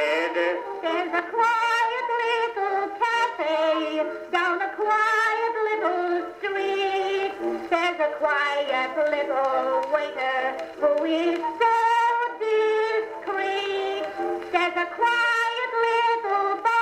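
Acoustic-era phonograph cylinder recording of vaudeville singing with band accompaniment, played back on an Edison phonograph. Held, changing notes carry through, thin and without any bass.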